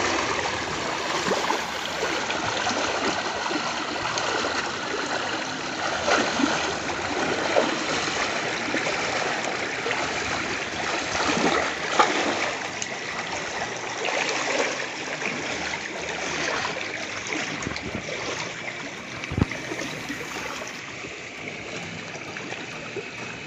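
Shallow water rushing steadily down a narrow concrete irrigation channel, with splashing as hands and feet churn the water while groping for fish; a couple of sharper splashes stand out, one about halfway through and one near the end.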